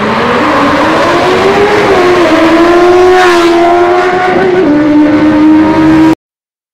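Benelli 600i's inline-four engine with a slip-on exhaust at high revs, a loud steady engine note that climbs slightly, drops in pitch about four and a half seconds in, and cuts off abruptly about six seconds in.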